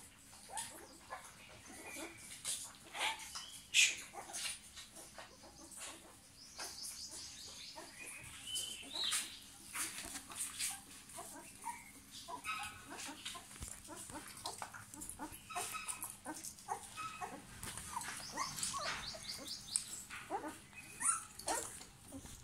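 Newborn German Shepherd puppies squeaking and whimpering while they nurse: many short, high-pitched cries that overlap and come in clusters.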